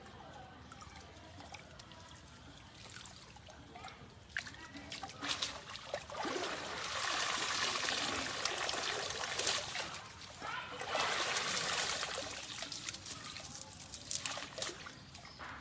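Water pouring and splashing off a wet fishing net hauled up out of a shallow stream. It starts with small splashes as hands work in the water, then there are two long spells of heavy streaming about halfway through, and a few sharp splashes near the end.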